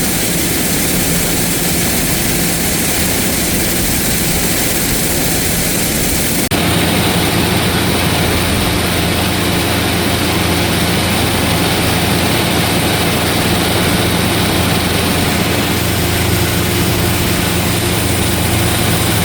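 Loud, steady farm machinery running. About six and a half seconds in the sound cuts abruptly to a different steady engine drone, lower and heavier.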